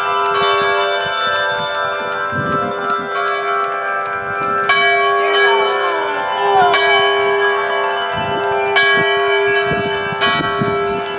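Church bell being rung, with fresh strokes about every two seconds. Each stroke rings on into the next, so the ringing never stops.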